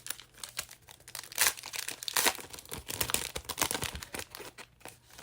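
Plastic trading card pack wrapper being torn open and crinkled, as irregular crackles with the loudest rips about a second and a half and two seconds in.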